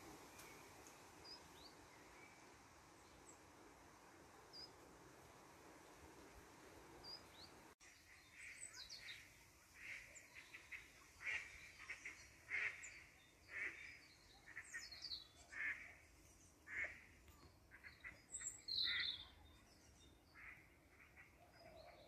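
Birds calling: a few faint high chirps at first, then from about eight seconds in a series of short, harsh calls repeating irregularly about once a second, with higher chirps mixed in.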